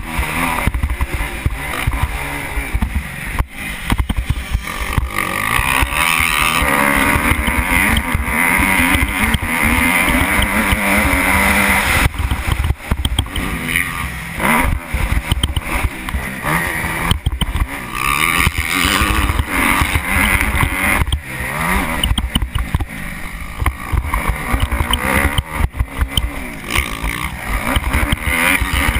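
Kawasaki KX250F motocross bike's four-stroke single-cylinder engine, heard from the rider's helmet, revving up and falling back again and again as it accelerates and shifts around a dirt track, with wind rumble and knocks over the helmet microphone.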